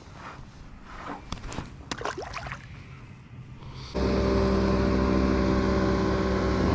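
Faint clicks and handling rustles, then, about four seconds in, a motorboat's engine comes in suddenly as a loud, steady drone that holds one pitch.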